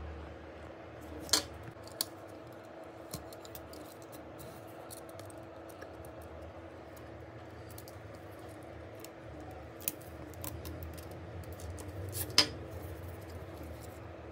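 Small hand tools clicking and tapping on a smartphone's parts during a repair: a handful of sharp clicks, the loudest about a second in and near the end, over a steady low hum.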